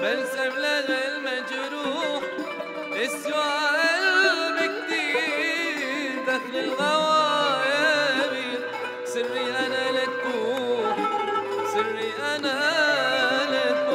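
A man singing a long, ornamented Arabic vocal line with strong vibrato, accompanied by an Arabic ensemble of oud, qanun, ney and riq frame drum.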